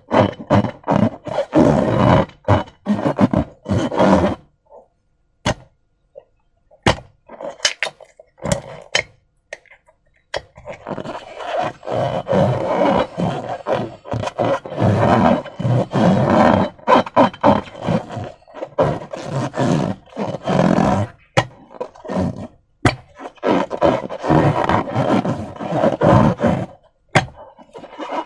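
Slime squelching and crackling as it is squeezed and worked by hand. Thick runs of wet pops and squishes give way to a few seconds of scattered clicks partway through, then pick up again.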